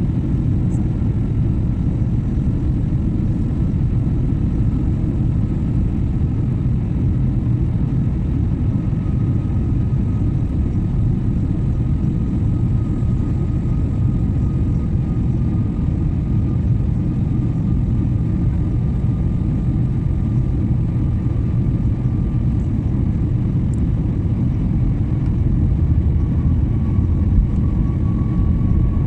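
Jet airliner cabin noise heard from a window seat while the plane descends: a steady, loud low rumble of engine and airflow. Under it runs a faint high engine whine that holds one pitch and drifts slightly.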